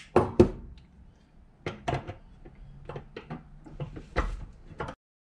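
Metal individual throttle bodies handled and fitted together on a workbench: a run of sharp clunks and clicks as the parts are set down and pushed into place, three close together at the start and more scattered through the rest, cutting off abruptly near the end.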